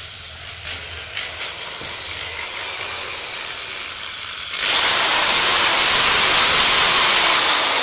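A gas blowtorch in a binaural audio drama: a low hum and a few clicks under a slowly rising hiss, then about four and a half seconds in the flame's hiss comes on suddenly and loud and holds steady.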